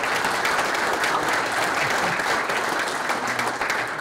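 Audience applauding steadily: many people clapping their hands at once.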